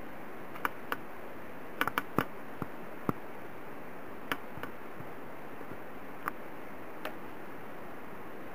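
Scattered light clicks and ticks over a steady hiss: about a dozen at uneven intervals, several close together about two seconds in.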